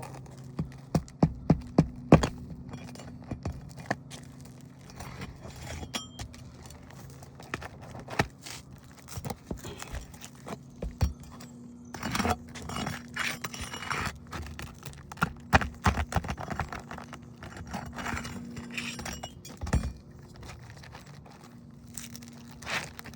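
A metal tool working roofing nails loose from asphalt shingles: a quick run of about six sharp taps in the first two seconds, then scattered clicks, scraping and rustling as the old shingle is worked free.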